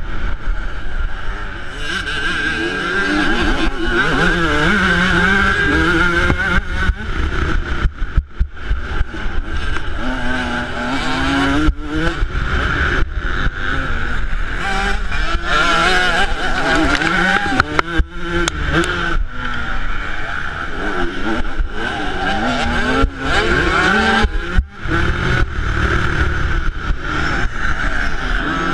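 2008 Yamaha YZ125 single-cylinder two-stroke motocross bike racing, its engine revving up and down over and over with brief sudden drops where the throttle is chopped, under a steady low wind rumble on the microphone.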